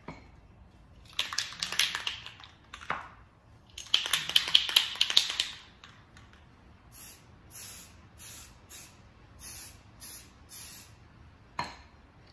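Rust-Oleum camouflage aerosol spray paint can hissing in bursts: two longer sprays in the first half, the second the loudest, then a run of short, evenly spaced puffs about every half second.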